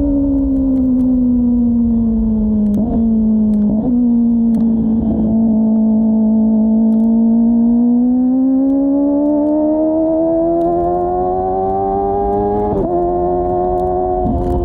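Kawasaki ZX-25R's 250 cc inline-four through a Yoshimura R-11 slip-on exhaust, running under way. The pitch sags slightly with two brief breaks around three and four seconds in, then rises steadily through the second half, with another short break about thirteen seconds in.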